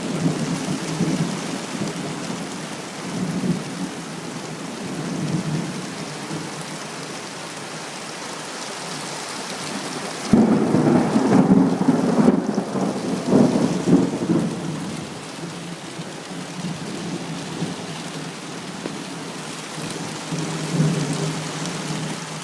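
Heavy rain falling steadily while thunder rolls and rumbles. About ten seconds in, a sudden crack starts a louder burst of rumbling thunder that lasts a few seconds before fading back under the rain.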